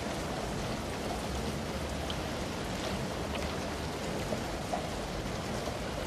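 Steady rain falling, an even hiss with a few faint light ticks scattered through it.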